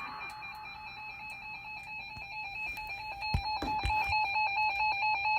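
Emergency Alert System attention signal: a steady electronic two-tone alert tone, heralding a severe thunderstorm warning. It gets louder about two-thirds of the way through, with a few low thumps.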